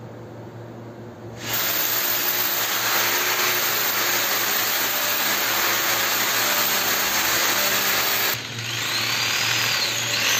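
Electric hand drill running steadily, drilling into a concrete ceiling for an anchor fastener hole. A low hum comes first; the drill starts about a second and a half in, dips briefly near the end and runs on.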